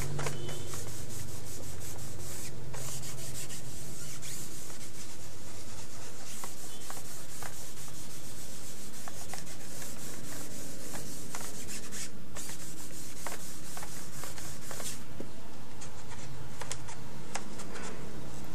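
Steady rubbing and scratching handling noise, dotted throughout with many small clicks.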